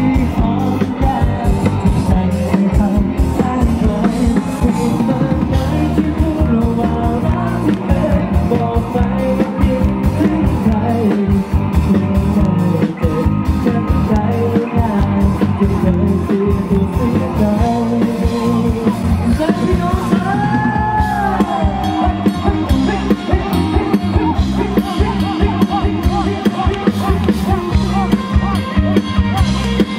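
Live rock band playing through stage PA speakers: electric guitar and drum kit keeping a steady beat, with a sung vocal line over them.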